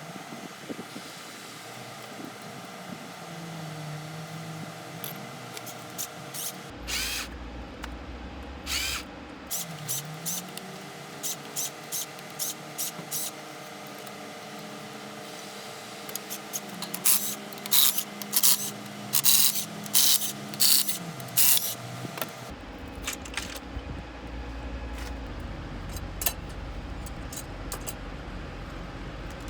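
Repair work on an engine: hand tools clinking and knocking against metal, in clusters of sharp taps, over a steady mechanical hum.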